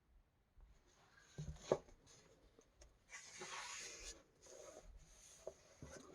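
Paper pages of a coloring book being handled and turned: a couple of soft knocks, then a rustling sweep of paper about three seconds in, with lighter rustling after.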